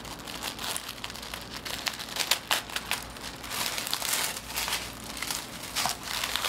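Paper packaging crinkling and rustling as tape is pulled off and a box is opened by hand: a steady run of irregular crackles with sharper snaps now and then.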